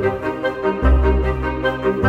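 Background music: sustained instrument notes over a low bass line that changes note about once a second.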